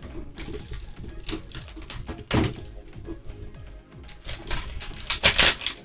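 A Pokémon tin's packaging being opened by hand: irregular crackling, clicking and tearing of plastic wrap and card, with two louder crackles, one about halfway and one near the end. Background music plays underneath.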